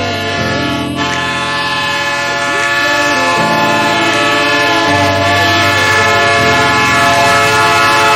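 Diesel freight locomotive's air horn, several tones at once, held in one long blast over the sound of the moving train.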